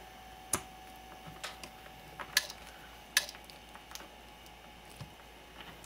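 A few sharp plastic clicks and knocks spread over several seconds: a red and black DC power lead's connector being handled and plugged into the back of a Yaesu HF/50 MHz transceiver.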